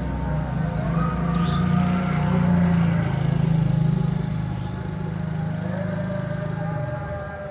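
Low engine rumble of a passing motor vehicle, swelling through the middle and fading out near the end, with small birds chirping briefly over it.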